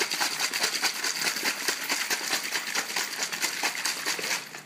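Two small plastic water bottles, each holding water and a wad of toilet paper, shaken hard by hand: a fast, even sloshing rattle that stops abruptly near the end.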